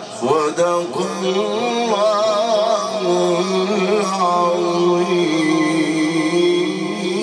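A man reciting the Quran in the drawn-out, melodic Egyptian style. His voice wavers through an ornamented melody, then holds one long steady note from about three seconds in.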